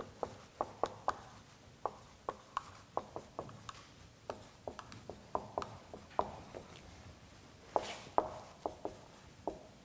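Marker writing block letters on a large white board: a run of short, quick strokes, two or three a second, with one longer, brighter stroke about eight seconds in.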